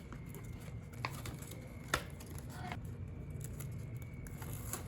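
Small pieces of tape being handled and pressed onto black cardstock handles: a few light taps and clicks, the sharpest about two seconds in, over a faint steady hum.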